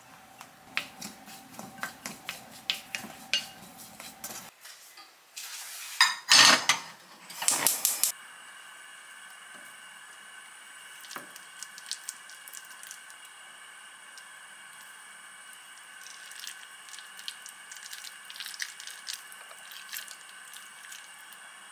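Hands mixing and squeezing starch-coated julienned zucchini in a glass bowl, with light clicks and wet handling noises. A few loud noisy bursts come about six to eight seconds in, followed by a steady faint hiss with a thin high hum under the quieter handling.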